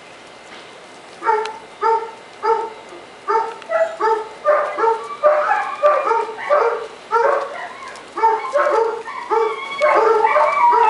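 Weimaraner puppy barking: short, high-pitched yaps that begin about a second in and keep coming, two or three a second.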